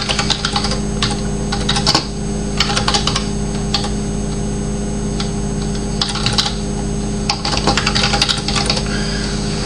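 Typing on a computer keyboard: quick runs of key clicks with short pauses between them, over a steady low hum.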